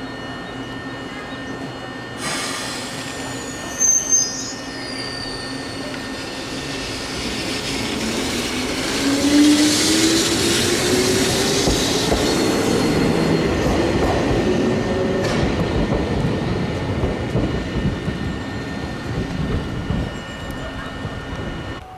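Eizan Railway 700-series electric car pulling away and running past: a brief loud double sound about four seconds in, then the traction motors whine steadily higher in pitch as it accelerates, over the running noise of the wheels with some squealing on the rails.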